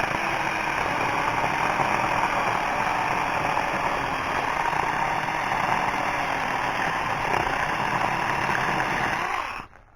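Battery-powered handheld mini chainsaw running steadily as it cuts into a tree trunk, stopping abruptly near the end.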